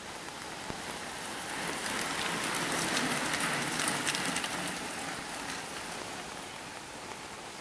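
A bunch of racing bicycles passes on a wet road in the rain: the hiss of tyres on the wet surface swells and fades over a few seconds, with a scatter of sharp clicks as they go by, over steady rain.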